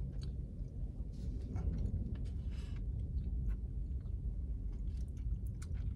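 Steady low hum inside a car cabin, with a few faint clicks and handling noises.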